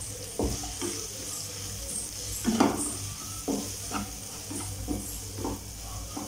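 Wooden spatula stirring and scraping sliced green capsicum and onion in a non-stick kadai, in about nine irregular strokes, the loudest a little before the middle, over the steady sizzle of the vegetables frying in oil.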